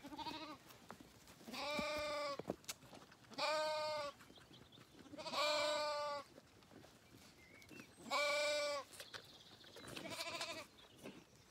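Zwartbles lambs bleating: six quavering calls, each under a second long and roughly two seconds apart, the middle four the loudest, as hungry lambs crowd for bottled milk.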